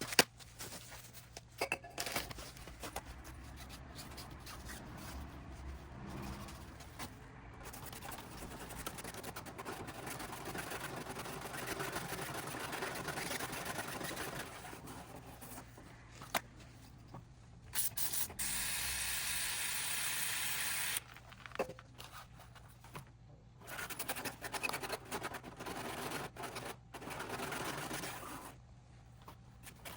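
Hands working on a motorcycle speedometer cable: irregular scraping and rubbing with a few sharp clicks, and one steady aerosol spray hiss of about three seconds, a little over halfway through, as the cable is cleaned and lubricated.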